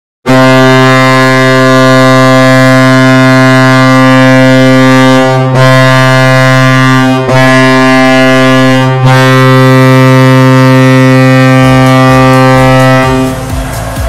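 Colorado Avalanche arena goal horn blowing one long, low, steady blast of about thirteen seconds, dipping briefly three times in the middle. Near the end the horn stops and the goal song's music begins.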